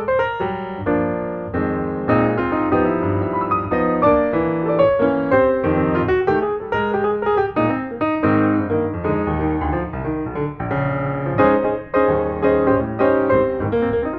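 Background piano music: a steady run of many notes with chords underneath.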